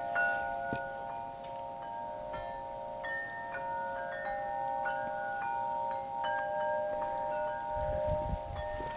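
Wind chimes ringing in the wind. Several tuned tubes are struck again and again, and their long ringing tones overlap.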